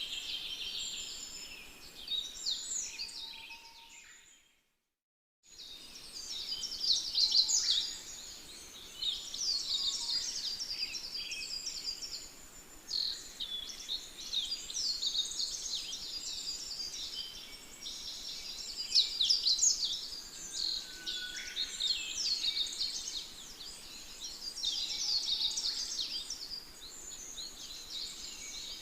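Many birds chirping in a dense, continuous chorus of rapid high calls and quick downward-sweeping notes. The sound drops out completely for about a second, around four and a half seconds in, then resumes.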